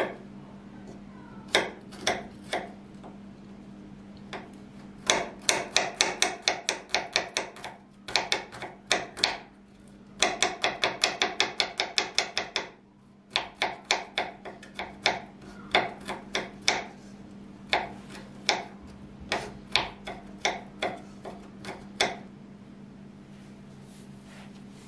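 Kitchen knife chopping garlic cloves on a wooden cutting board, each cut a sharp click of the blade on the board. A few single cuts come first, then fast runs of about five or six strikes a second, slowing to scattered cuts that stop a couple of seconds before the end.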